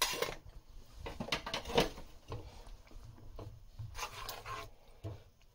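A spoon stirring thick spinach-and-fenugreek gravy in a metal pan, with irregular scrapes and a few soft knocks against the pan.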